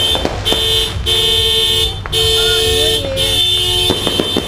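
A two-note car horn honking in a run of blasts, each about half a second to a second long with short breaks between them. Sharp firecracker pops come in near the end.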